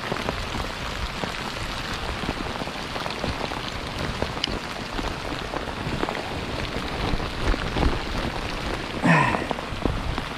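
Heavy, relentless rain falling steadily, with many individual drops ticking sharply as they strike.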